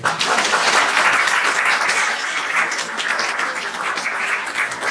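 Audience applauding, starting suddenly and strongest in the first two seconds, then easing a little.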